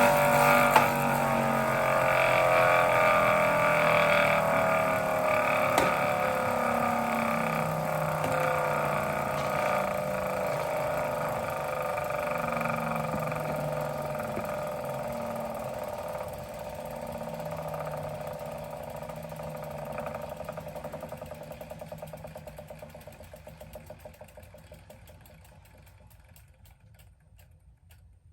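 Wahoo Kickr Snap wheel-on bike trainer spinning down after pedalling stops: a whine that falls slowly in pitch and fades away over about 25 seconds. Under it a low hum pulses every couple of seconds, and near the end the sound breaks into ticks that slow as the flywheel and wheel come to rest.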